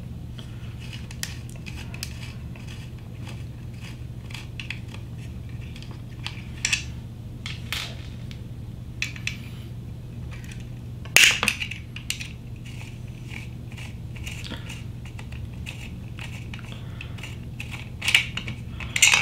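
Small clicks and rattles of hands working screws and plastic parts on a LulzBot TAZ 6 3D-printer extruder while taking off its fan and fan duct. A louder clatter comes about eleven seconds in and again near the end, over a steady low hum.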